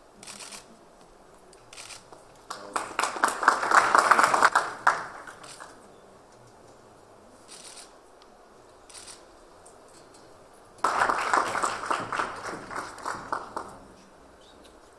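Audience applauding in two bursts of about three seconds each, with a few single sharp clicks in the quieter stretches between.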